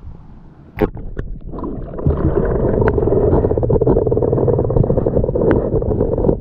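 River water heard through a camera held underwater: a couple of sharp splashing knocks about a second in, then a loud, steady, muffled rushing and gurgling.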